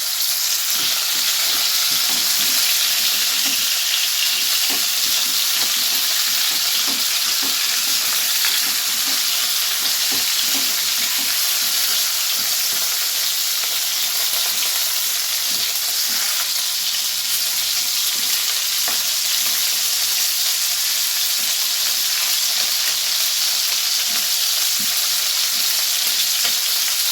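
Boneless chicken pieces shallow-frying in hot vegetable oil in a pan: a steady, even sizzle, with occasional faint taps as the pieces are turned.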